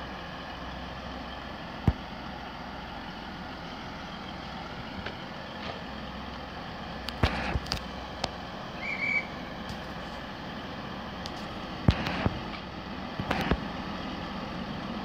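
Class 185 diesel multiple units running: one idling at the platform while a second pulls in alongside, a steady low engine hum. Several sharp clicks and knocks, and one short high beep about nine seconds in.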